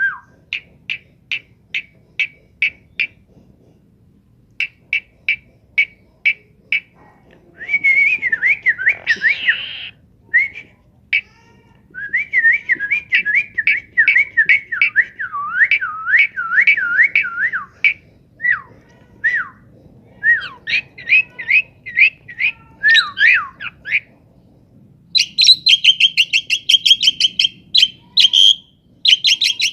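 Pet talking bird whistling and calling: a run of short, evenly spaced notes, then long stretches of warbling whistles that swoop up and down, and a fast chattering burst of higher notes near the end.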